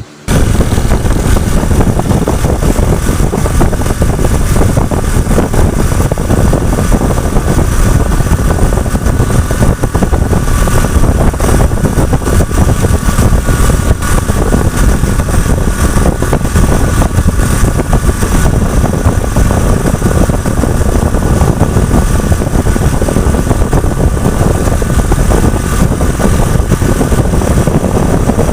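Motorcycle engine running while riding along a road, under a heavy, steady rush of wind on the microphone.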